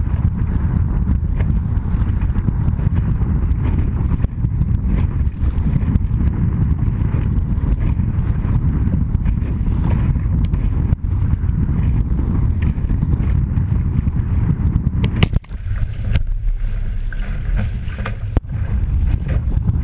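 Wind buffeting the microphone of a camera on an OK Dinghy's deck, with sea water rushing and splashing along the hull as it sails through choppy waves. The rumble drops out for a moment about three quarters of the way through.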